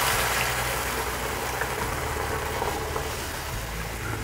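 Thin mustard and poppy seed paste being poured into a hot frying pan of oily onion masala. The pan sizzles with a hiss that slowly fades as the liquid spreads, over a steady low hum.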